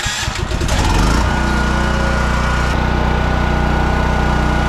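Champion 10,000-watt dual-fuel portable generator engine, electric-started on propane, firing unevenly and picking up speed, then settling into a steady run about a second in.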